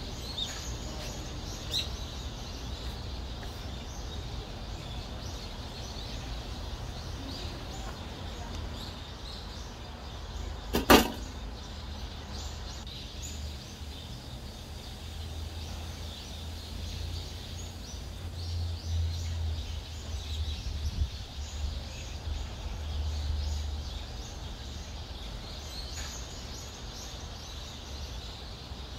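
Outdoor ambience: a low steady rumble with faint, scattered bird chirps, and one sharp, loud knock partway through.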